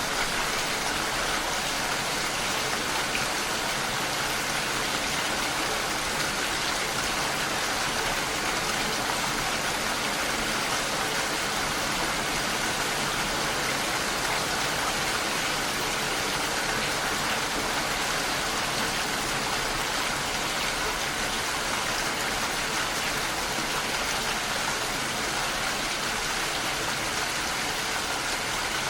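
Steady rain falling, an even hiss of many drops that does not let up.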